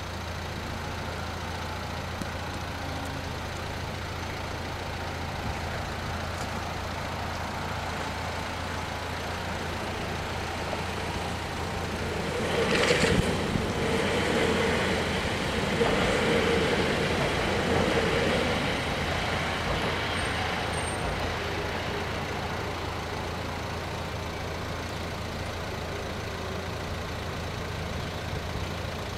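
Electric multiple-unit train (SNCB MS08 Siemens Desiro ML) passing over a level crossing. It swells from about 12 seconds in with a sharp high hiss or squeal as it arrives, runs past for several seconds, then fades away.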